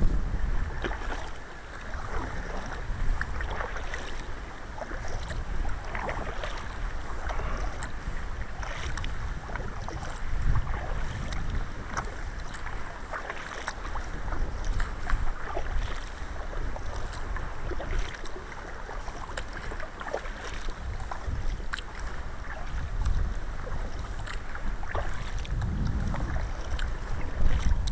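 Sea kayak being paddled: repeated paddle-blade splashes and water sloshing against the hull, with wind rumbling on the microphone.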